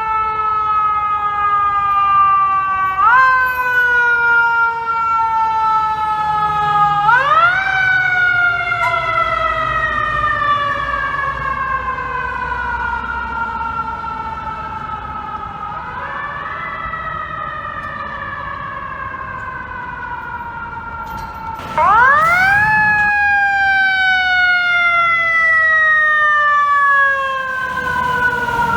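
Fire truck siren, wound up four times, each time rising quickly in pitch and then slowly winding down, over a low traffic rumble.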